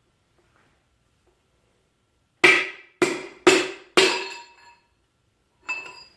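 Piston being tapped down through a tapered ring compressor into an LQ4 V8 cylinder bore: four sharp knocks about half a second apart, each leaving a brief metallic ring, then a softer fifth knock near the end.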